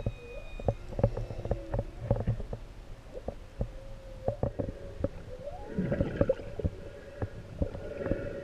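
Humpback whale song heard underwater: long held tones with a rising glide about five and a half seconds in and higher squeaky calls around six and eight seconds, over scattered clicks and knocks.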